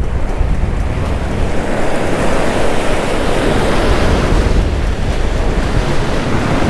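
Rough sea surf breaking and washing against the stone blocks of a jetty, with wind buffeting the microphone. The wash swells about two seconds in.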